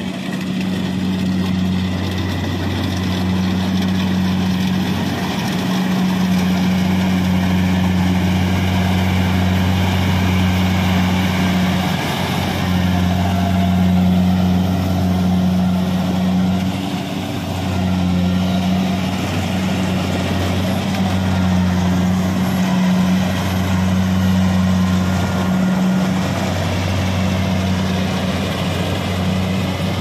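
Kubota DC-70 rice combine harvester running steadily while it cuts and threshes rice: a loud, even engine drone.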